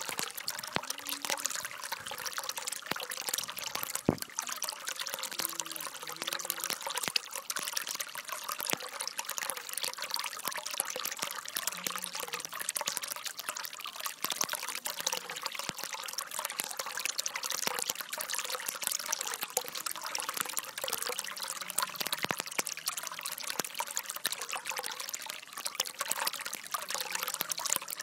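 Water falling and trickling over rocks in a small stream, steady throughout, with one sharp tap about four seconds in.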